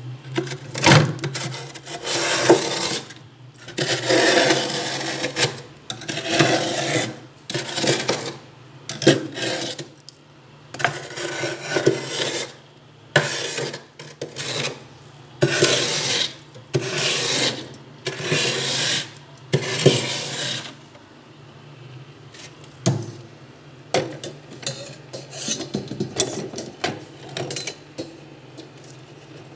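Metal spoon scraping built-up frost off the inside of a freezer in repeated gritty strokes, about one a second. After about twenty seconds the scraping stops and only a few light knocks remain over a low steady hum.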